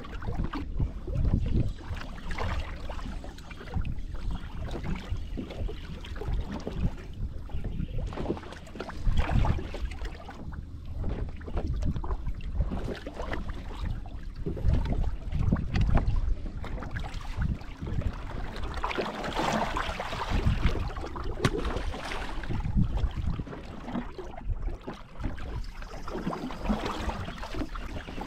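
Gusty wind buffeting the microphone and choppy lake water slapping against the hull of a fishing boat, in uneven surges.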